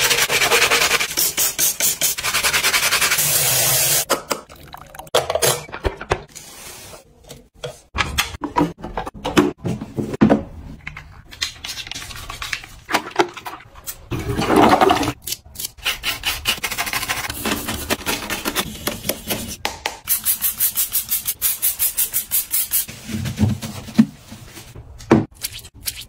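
Close-up scrubbing in quick rasping strokes, first over a foamy floor drain, then inside a wet toilet bowl.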